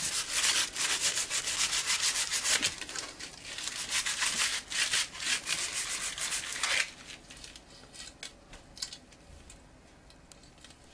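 Sandpaper rubbed by hand in quick back-and-forth strokes over the blade of a graphite hockey stick, roughing up its shiny finish so a coating will bond. The scratchy sanding stops about seven seconds in, leaving only a few faint knocks.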